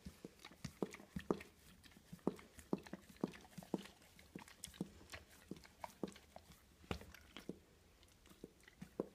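Dog licking and smacking its lips: a faint run of irregular wet clicks, a few a second.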